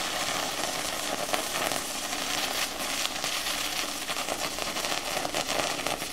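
Plasma cutter arc from a P80 torch on a 40-amp machine, fired with no air supply, running as a steady crackling hiss. Without air it does not cut; it only burns the top of the steel and burns up the nozzle.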